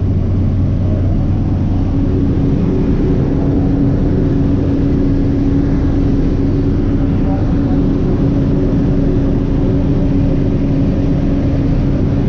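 Skydiving aircraft's engine and propeller drone heard inside the cabin, loud and steady, with a low hum whose note steps higher about two seconds in.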